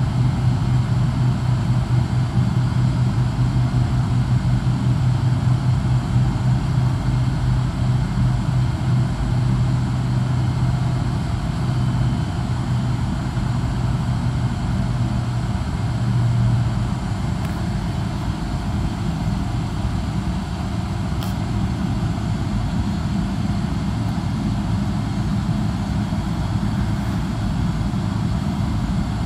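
Steady low rumble of distant jet aircraft engines, easing a little about halfway through.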